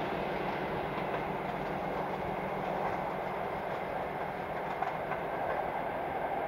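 A train of passenger coaches rolling along the track: a steady rumble of wheels on rails with a few faint clicks over the rail joints.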